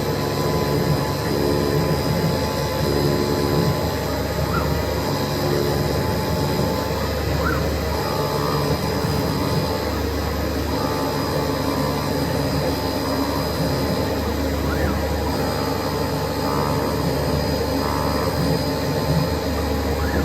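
CNC flatbed cutting machine running as it cuts shaped parts from 3 mm rubber sheet. A steady loud rushing noise sits under motor tones that shift to a new pitch every second or so.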